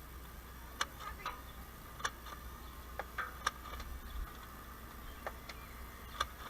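About ten sharp clicks and taps at irregular intervals, over a faint steady hum.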